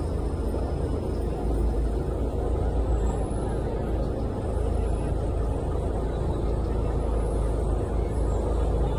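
River ferry under way: a steady, unbroken rumble of the boat's engine and rushing water, heavy in the low end, with wind on the microphone.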